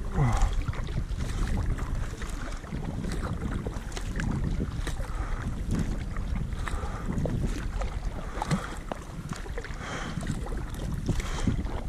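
Kayak paddling: the paddle blades dipping into the water on alternate sides in a regular stroke rhythm, with splashes and drips off the blades and wind rumbling on the microphone.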